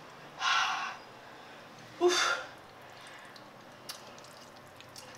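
Two short, sharp breaths through the mouth, about a second and a half apart, from someone eating very spicy noodles, the second starting with a brief voiced 'hah'. A faint click of a fork on the ceramic plate comes near the end.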